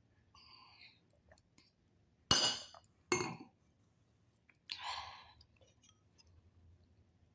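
Tableware clinking during a meal: a short ringing clink near the start, then two sharp knocks about a second apart, the first the loudest, and a brief clatter about five seconds in.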